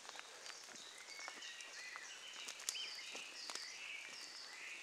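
Woodland birds singing: many short, high chirps and whistles, over light rain with scattered drips ticking on the leaves.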